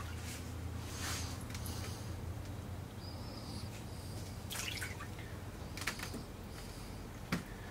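Quiet shop room tone: a low steady hum, with a few faint clicks and rubs as hands work a swim bait mold on the bench.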